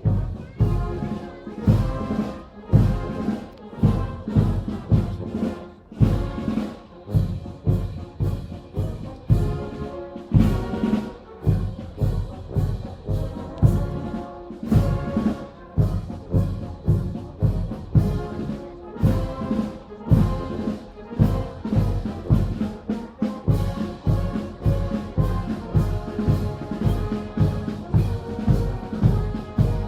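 Brass marching band playing a march, with a steady drum beat under the horns.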